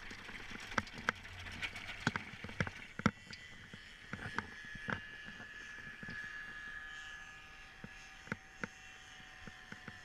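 Irregular light clicks and knocks from the pilot's harness, gear and footsteps while he stands under the paraglider wing after landing, with the motor off. Faint steady high whine from about three seconds in.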